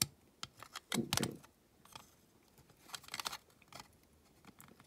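Small die-cast model parts clicking and tapping against each other as they are handled and pushed into place, in a few short scattered clusters.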